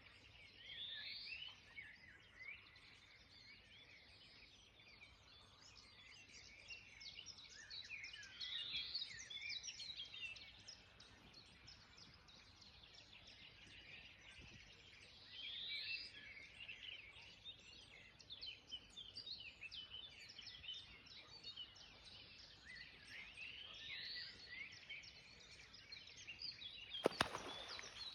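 Songbirds singing and chirping faintly, with one rising phrase that recurs every several seconds. A single sharp click comes shortly before the end.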